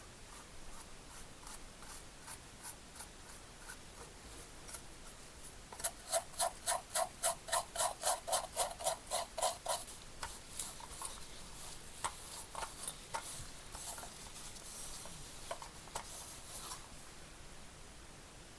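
Repeated hand strokes of rubbing or scraping on metal work: sparse at first, then for about four seconds in the middle louder and faster, about four strokes a second with a squeak in each, before tapering off.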